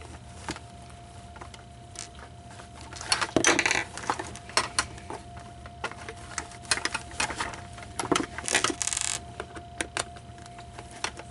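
Irregular clicks, taps and rattles of small plastic and metal parts being handled, with two longer scraping stretches about a third of the way in and near the end, over a faint steady tone.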